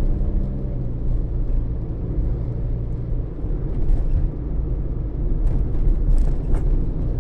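Car running with a steady low rumble, with a few faint light knocks in the second half.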